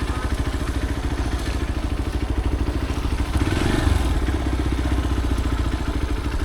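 Motorcycle engine idling with an even pulsing beat, rising briefly a little over three seconds in.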